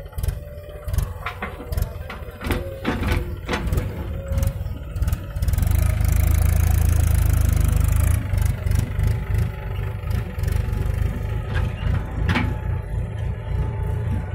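Diesel engines of a backhoe loader and a Mahindra tractor running, with sharp knocks of soil clods dropping into a trailer in the first few seconds. About five seconds in, the tractor's engine revs hard for a couple of seconds as it pulls the loaded trailer away, then settles to a steady run.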